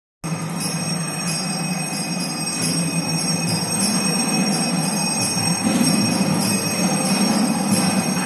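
Rhythmic metallic jingling keeping the beat for Bharatanatyam dancers, about two strikes a second, each ringing on briefly, over a steady low rumble of the stone hall.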